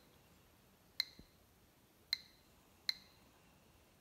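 GQ GMC-300E Plus Geiger counter clicking on detected counts: three short, sharp clicks at uneven spacing, roughly a second apart. Each click is one detected particle, and the slow rate shows only a little radiation from the Fiestaware plate getting through the cereal box.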